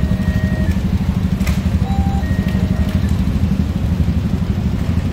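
City street traffic at a busy intersection: a loud, steady low rumble of engines and tyres. A faint two-note electronic tone repeats about every two and a half seconds.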